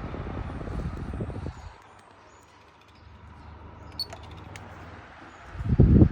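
National computer-controlled box fan running, its airflow buffeting the microphone in rough low gusts during the first second and a half and again near the end, with a steady fan noise between and a few faint clicks about four seconds in.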